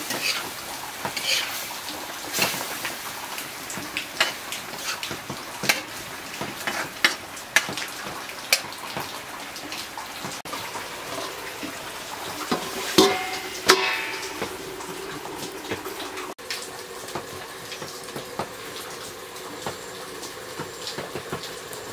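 Metal ladle stirring and scraping pork frying in an iron wok over a wood fire, with sizzling and many sharp ticks. A few louder metal clanks with a short ring come about thirteen seconds in, followed by a steadier sizzle.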